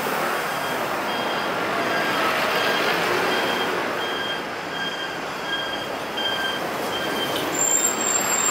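Street traffic noise, a steady wash of engines and tyres, with a short high beep repeating every half second or so. A thin high tone comes in near the end.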